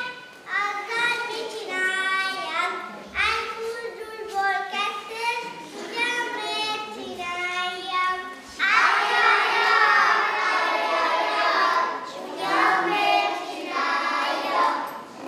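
A group of young children singing together. The singing turns louder and rougher for a few seconds just past the middle.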